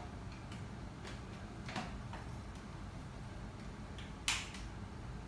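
Plastic parts of a cordless stick vacuum being handled and fitted together: a couple of light knocks, then one sharp click about four seconds in.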